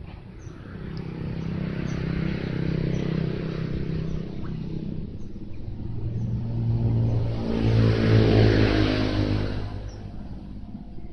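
Engines of motor vehicles passing close by. One swells in over the first couple of seconds and eases off, then a louder one rises to a peak about eight seconds in and fades away.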